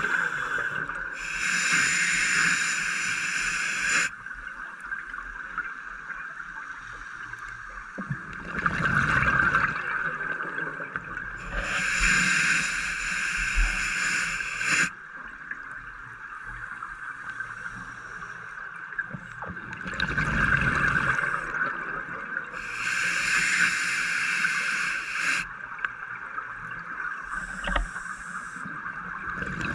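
A scuba diver breathing through a regulator underwater: three long hissing inhalations, each later followed by a bubbling, gurgling exhalation, in a slow cycle of about eleven seconds. Steady background noise underneath.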